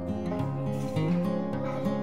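Background music led by an acoustic guitar, with steady sustained notes.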